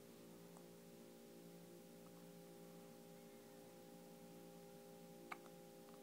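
Near silence: a steady low hum of room tone, with a few faint ticks and one sharper click about five seconds in.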